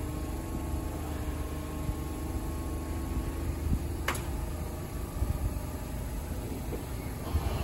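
Steady low hum of electric trains at a station platform: a Sanyo 5000 series train standing with its doors open while a Hanshin train draws slowly in on the other track. One sharp click about four seconds in.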